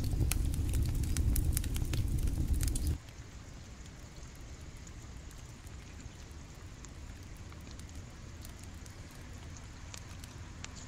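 Wood fire crackling hard under a grill, with a low rumble beneath the sharp snaps. About three seconds in it cuts sharply to a much quieter, steady rush of a shallow stream, with only a few faint crackles.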